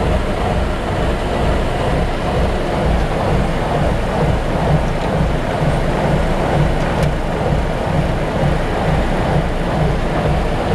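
Boat's engine running, a steady low rumble heard from inside the wheelhouse.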